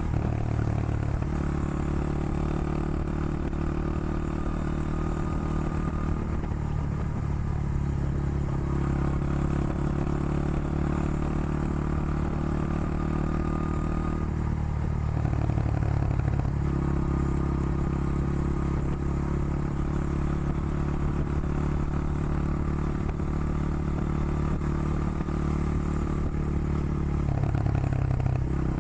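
Honda XR100 motard's single-cylinder four-stroke engine running under way. Its note shifts briefly about halfway through and again near the end.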